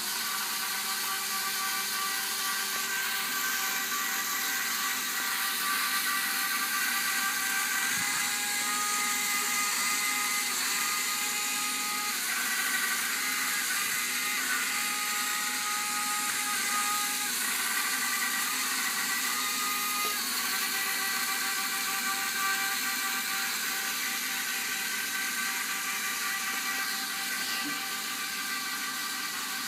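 Small electric drive motors and gears of a self-driving toy robot whirring steadily, a high whine whose pitch changes every few seconds.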